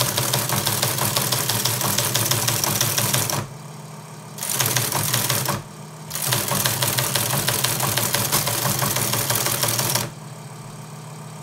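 Teletype Model 15 teleprinter printing incoming text: rapid mechanical clatter of the typebars striking the paper, in three runs (a long one, a short one about four seconds in, then another long one that stops about ten seconds in), with the machine's motor running steadily underneath and alone in the pauses.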